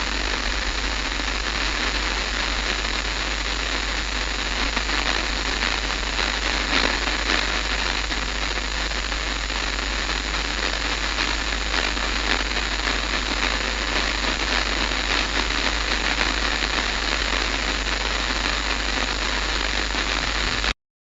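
Electronic static: a steady hiss with fine crackling and a low hum underneath, cutting off abruptly near the end.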